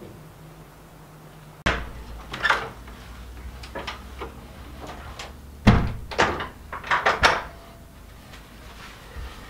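A door and things being handled in a small room: a run of knocks, clunks and clatters starting about two seconds in, the loudest a little past halfway.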